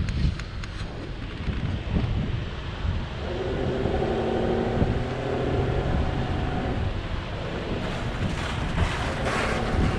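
Off-road vehicle engine running, its note steadying into a held pitched tone from about three seconds in, over heavy wind buffeting on the microphone. A few sharp knocks near the end.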